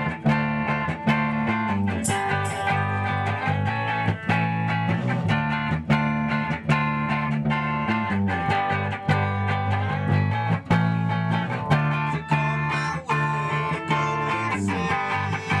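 Rock music with electric guitars strumming chords over a steady beat.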